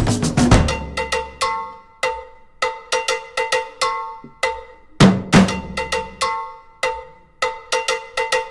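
Background music: a percussion track of short, ringing pitched strikes in a repeating rhythm, with drum-kit hits joining in about five seconds in.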